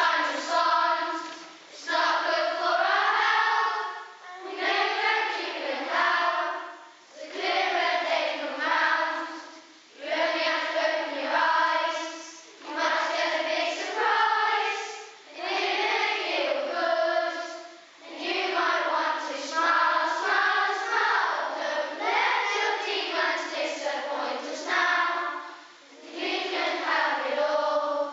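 A children's choir singing together in phrases a few seconds long, with short breaks between phrases.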